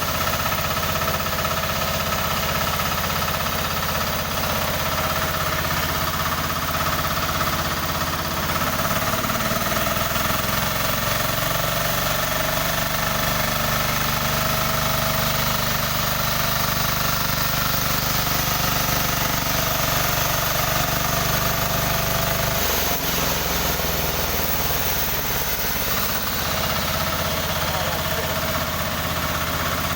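Newly assembled sawmill machine running under test: its engine runs steadily with a knocking beat and a steady whine above it. The engine note shifts about ten seconds in and again a little after twenty seconds.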